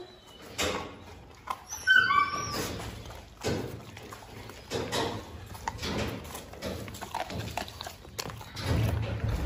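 Presa Canario chewing a piece of raw meat: wet smacking and irregular crunches. A few short bird chirps come about two seconds in.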